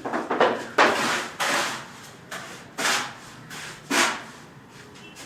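A series of about six rough scraping or rubbing strokes, each under half a second, spaced unevenly with short pauses between them.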